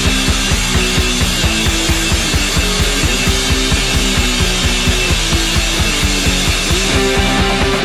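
Loud rock background music: distorted electric guitar over a fast, steady drum beat.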